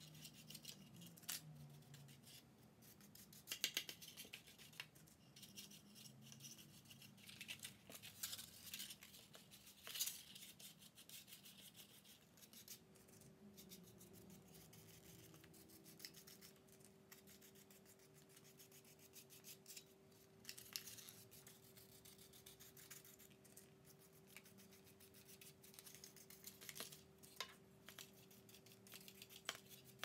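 Paintbrush scrubbing and dabbing paint onto a cardboard egg carton, with light scratchy strokes and small taps and clicks. A faint steady hum comes in a little before halfway.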